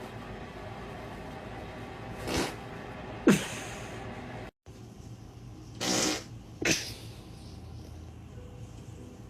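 Short farts: one about two seconds in and a louder one a second later that drops in pitch. After a brief cut to silence, two more short farts follow about half a second apart.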